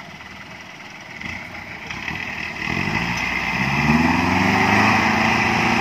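Willys jeep engine driving through mud, faint at first and then growing much louder from about halfway, with the revs rising about three seconds in.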